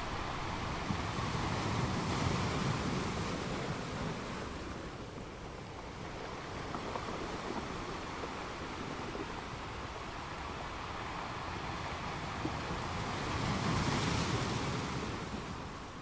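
Small waves breaking and washing up over a sandy beach, a steady wash of surf that swells louder twice, about two seconds in and again near the end.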